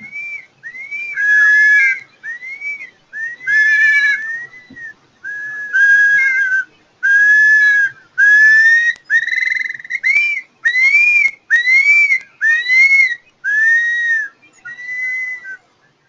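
Recorded long-billed curlew calls: a long series of loud, clear whistled notes, each arching up and then down in pitch, coming about one to two a second.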